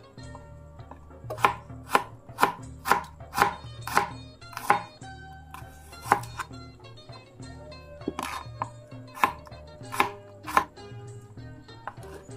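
Kitchen knife slicing shallot and garlic cloves on a plastic cutting board: a quick run of sharp knocks, about two a second, then a few more spaced-out strokes in the second half.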